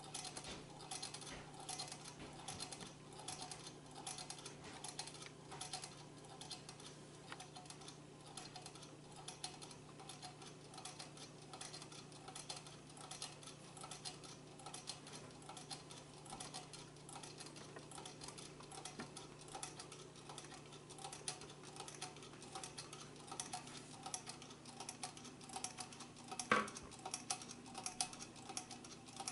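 Homemade tin-can Stirling engine running once warmed up over a flame, its wire crank and flywheel giving a faint, quick, steady ticking rattle as it turns. One louder click near the end.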